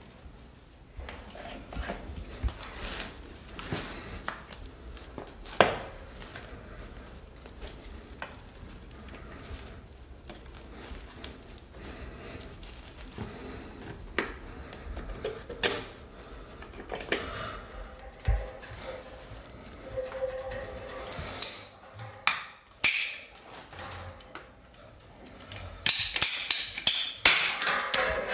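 Metal clinks, taps and knocks of a chrome radiator valve and compression fitting being handled and fitted onto plastic heating pipe, scattered and irregular, with a quick run of sharp clicks near the end as the fitting is worked on the valve.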